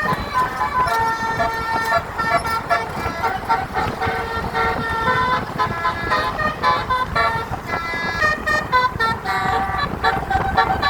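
Basuri multi-tone bus horn playing a tune: quick runs of short horn notes stepping up and down in pitch, over a low rumble.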